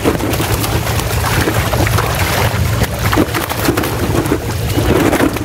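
Tilapia and other fish thrashing and splashing in a seine net pulled into the shallows, with dense irregular water splashing over a steady low hum.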